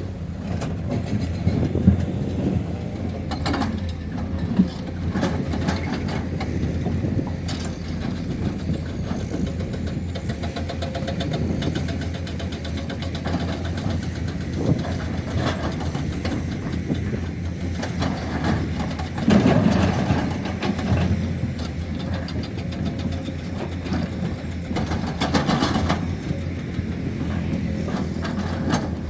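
Heavy diesel engine running steadily, with scattered knocks and clanks; the engine swells louder about two-thirds of the way through.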